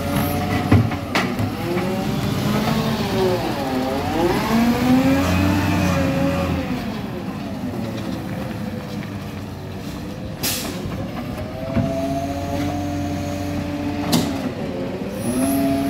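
Side-loader garbage truck's diesel engine revving up and down as its hydraulic arm lifts and tips wheelie bins, with sharp clanks from the bins and arm about a second in, around two-thirds of the way through, and near the end. In between, the engine runs steadily as the truck moves to the next bin.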